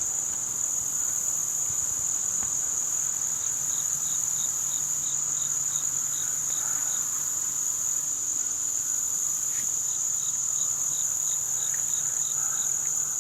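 Insects trilling: a steady, high-pitched chorus, with two runs of faint, regular chirps at about four a second, one a few seconds in and another near the end.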